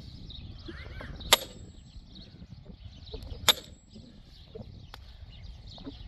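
Sledgehammer striking a log being split for firewood: two heavy blows about two seconds apart, each with a short metallic ring.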